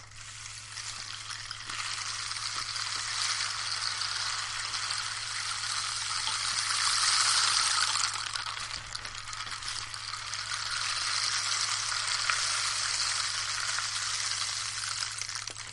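Wooden rainstick made from an old barkless branch, its fill trickling through in a continuous rain-like hiss. The hiss swells, drops off about halfway through, and then builds again.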